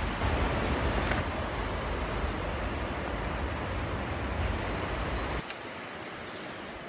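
Wind rumbling on the microphone over a steady rush of river water from a weir. Both drop sharply about five seconds in, leaving a softer, even outdoor hiss.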